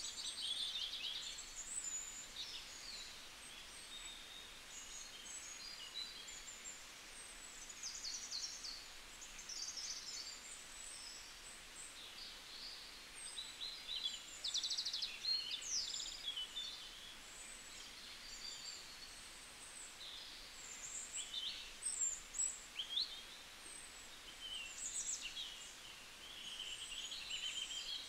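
Small birds chirping and twittering in quick, high calls and short trills, over a faint steady hiss.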